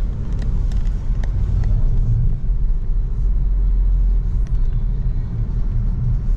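Steady low rumble of a car driving, heard from inside the cabin, with a few faint ticks over it.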